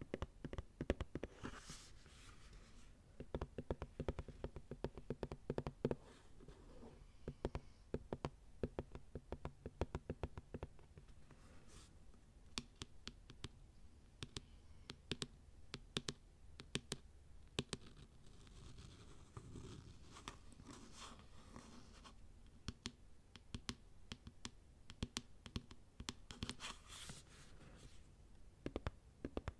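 Fingernails tapping and scratching on a plastic lotion bottle close to the microphone: quick, irregular clicks, with a couple of longer scratching passes in the second half.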